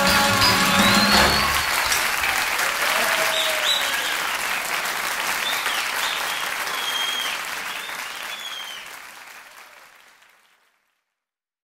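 A live audience applauding, with a few short high whistles, as the band's last chord dies away about a second in. The applause fades out to silence near the end, as at the close of a record track.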